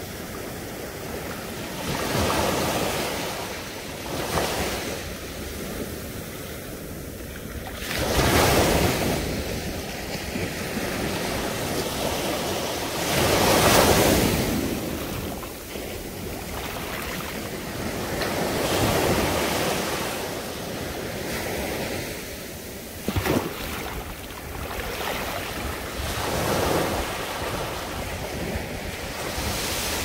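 Small sea waves breaking and washing up a sandy beach, the surf swelling and fading every few seconds, loudest about 8 and 14 seconds in.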